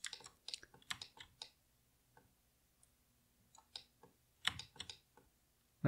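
Faint, scattered clicks of a computer keyboard and mouse in use: a run of quick clicks in the first second and a half, a pause, then more clicks toward the end.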